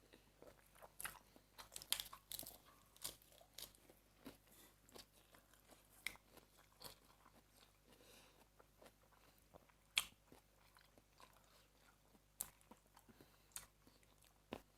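Faint close-up eating sounds: biting into blue swimming crab and chewing, with scattered short crunches and cracks of shell. The sharpest crunches come about two seconds in and about ten seconds in.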